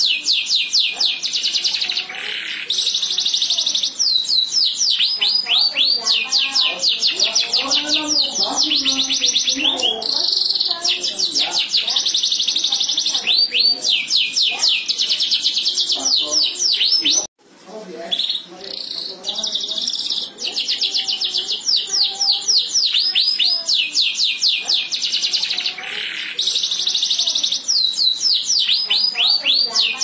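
Canary singing a continuous song of fast trills: rapid runs of repeated down-slurred notes alternating with buzzy rolls, broken off briefly about seventeen seconds in.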